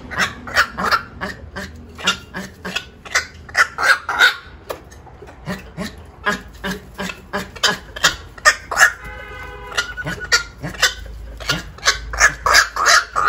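Black-crowned night heron calling in a fast series of short, harsh croaks, several a second, with a brief lull about five seconds in and one longer drawn-out call about nine seconds in.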